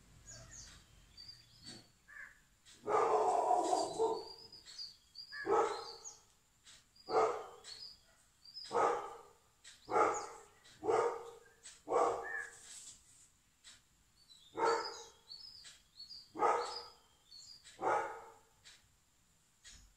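A dog barking repeatedly, about ten barks a second or two apart; the first, about three seconds in, is longer than the rest. Small birds chirp faintly in between.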